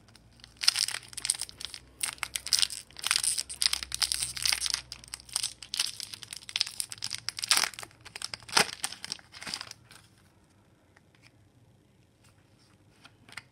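Foil wrapper of a hockey card pack crinkling and tearing as it is ripped open by hand, a dense run of crackles that stops about ten seconds in. After that, only a few faint clicks as the cards are handled.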